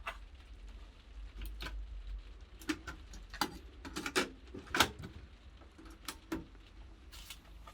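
A run of irregular plastic clicks and clacks from a cassette being handled and loaded into a cassette deck, the loudest about five seconds in. Playback music has not started.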